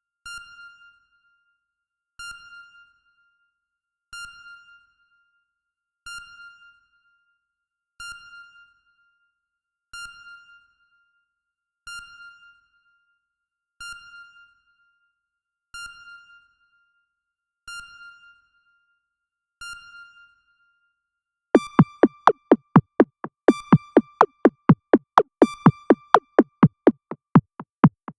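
Experimental ambient electronic music: a single synthesized ping, like a sonar blip, repeats about every two seconds. About 21 seconds in, a loud, fast drum-machine beat of about five hits a second comes in, with the pings now at a slightly lower pitch.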